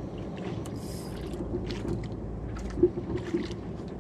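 A small fishing boat at sea: a steady low drone of running and water noise, with scattered light clicks and knocks. The loudest knock comes nearly three seconds in.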